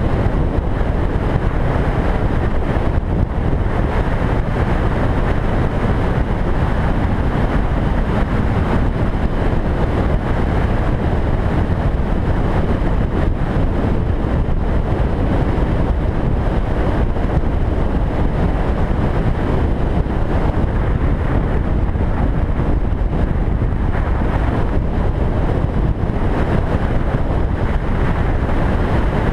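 Steady rush of wind on the microphone of a camera on a moving motorcycle, mixed with the motorcycle's engine and road noise.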